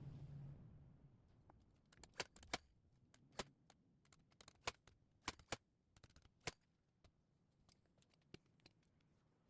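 Faint, irregular sharp clicks and knocks of woodworking tools and timber being handled, about a dozen over several seconds and thinning out toward the end. A low hum fades away in the first second.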